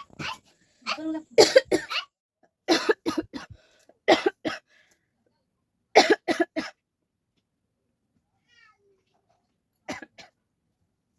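A person coughing in repeated fits of several hard, short coughs, separated by pauses, with a longer gap before a last short fit near the end. The coughs are performed on purpose, as one of several styles of coughing.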